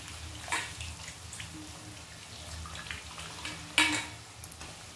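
Wet, squeezed bitter gourd pieces sizzling quietly in hot oil with onions in a kadhai, with scattered small pops and two sharper clicks, about half a second in and near four seconds.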